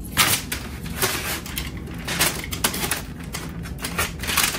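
Clear packing tape being cut with a utility knife and peeled off a cardboard panel: a series of short, irregular tearing and crackling noises.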